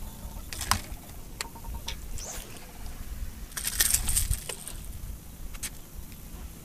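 Light metallic clicks and jingling from the lure and hook as a small bass on the line is swung aboard and handled for unhooking, with a denser jangle about four seconds in.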